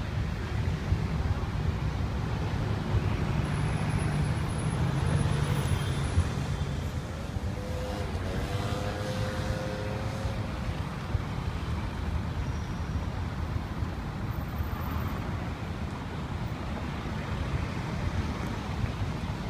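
Busy city road traffic: cars, vans and buses passing in a steady wash of engine and tyre noise, with a low rumble in the first half and a brief pitched drone about eight seconds in.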